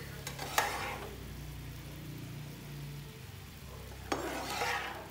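A metal ladle knocks against a wok of hot water twice, a few seconds apart. Each knock is followed by a short splashing hiss as water drains off blanched water spinach back into the pan. A low steady hum runs underneath.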